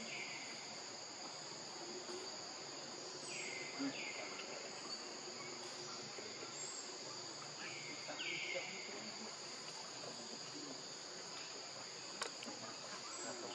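Steady high-pitched droning of insects. A few short calls fall in pitch over it, mostly in pairs, and there is one sharp click near the end.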